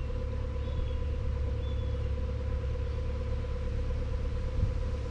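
Narrowboat's diesel engine running steadily while cruising, a low even rumble with a faint steady hum above it.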